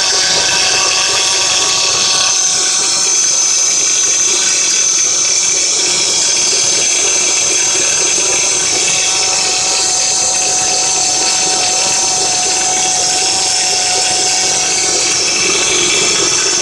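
Acura TL engine running with a steady high-pitched whine from the accessory belt drive, which the owner suspects comes from the power steering pump pulley.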